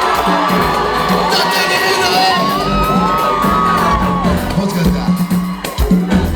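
Large concert crowd cheering and whooping over loud music from a live show; a steady beat sets in during the second half.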